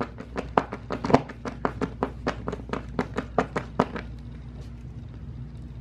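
Hand screwdriver turning a screw into a metal cabinet hinge mounting plate on a particleboard panel: an even run of sharp clicks, about five a second, that stops about four seconds in.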